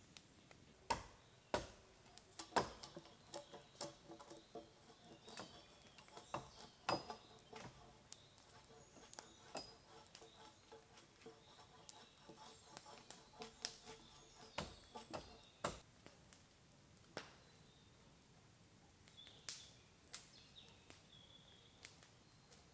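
Wood campfire crackling, with sharp irregular pops and snaps from the burning logs. A few faint bird chirps come in near the end.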